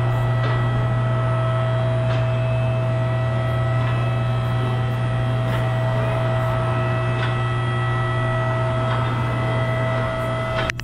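Two-post car lift's electric hydraulic pump motor running with a steady hum as it raises a car, with faint clicks from the arm safety locks about every one and a half to two seconds. Near the end the hum dips and there is a sharp click.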